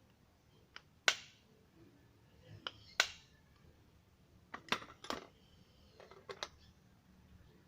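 Irregular sharp clicks and taps, about nine in all, the loudest about a second and three seconds in: tools and parts being handled while working on a motorcycle shock absorber.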